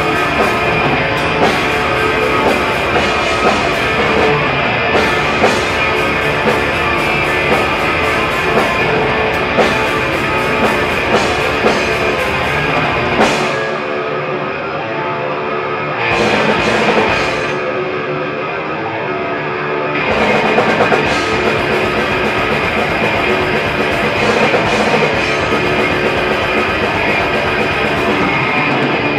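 Death metal band playing live: heavily distorted electric guitars, bass and drums. About halfway through, the drums drop out for a few seconds, leaving the guitars, and then the whole band comes back in.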